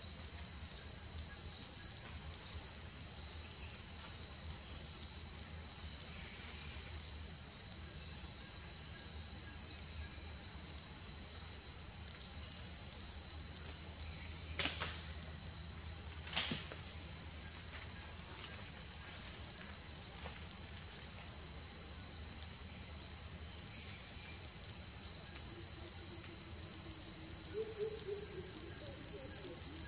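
Loud, steady, high-pitched insect chorus that drones without a break. Two sharp clicks come about halfway through, and a faint wavering low tone comes in near the end.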